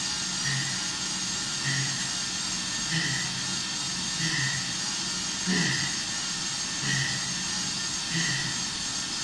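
Cycling trainer's roller resistance unit whirring steadily under hard pedalling, with a regular pulse about every second and a quarter.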